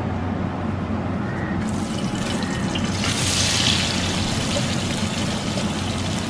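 Sliced onions sliding off a wooden board into hot coconut oil in a wide uruli and starting to sizzle. The sizzle builds about two seconds in and is loudest about three seconds in, over a low steady hum.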